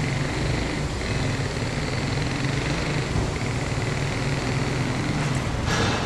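Automatic car washing machine running: a steady low motor hum under a wash of hiss, with a brief rushing burst near the end.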